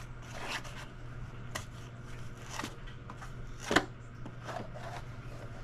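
Cardboard and plastic toy packaging handled and pulled at by small hands: scattered crackles and clicks, with a sharper snap a little under four seconds in, over a steady low hum.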